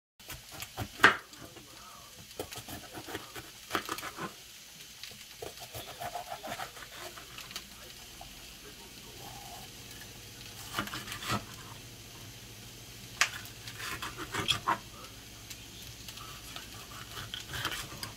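Kitchen knife cutting a red bell pepper on a plastic cutting board: irregular sharp knocks of the blade against the board, with quieter crisp slicing and handling between them. The loudest knock comes about a second in.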